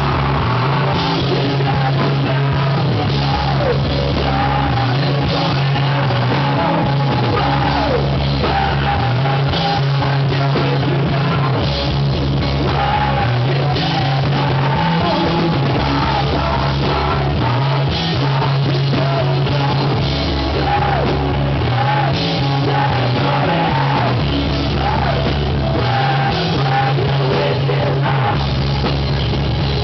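Live rock band playing loudly: electric guitars, bass and drum kit, with a male singer singing hard over them.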